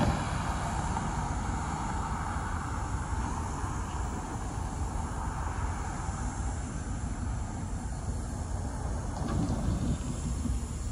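A car driving over the railroad grade crossing, its tyre and road noise fading over the first few seconds, over a steady low rumble.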